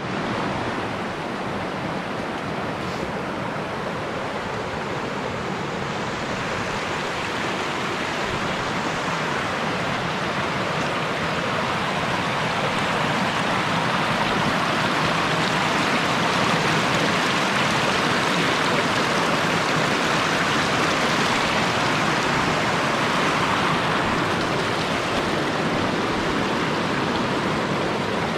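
Rushing mountain stream: a steady wash of flowing water, growing a little louder about halfway through.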